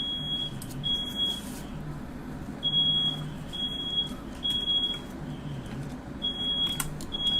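Smoke alarm sounding in its three-beep pattern: three short, high beeps about a second apart, a pause, then three more. It is set off by smoke from a firework let off indoors.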